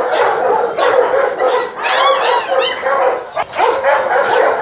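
Several kennel German shepherds barking at once, a continuous overlapping chorus of barks with some higher yips.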